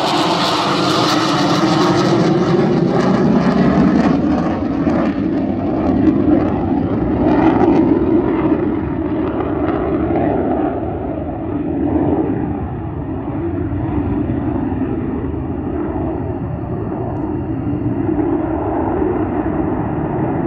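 Twin jet engines of an F-15 fighter flying past. A whine falls in pitch over the first two seconds, then the high hiss fades as the jet flies away, leaving a steady low rumble.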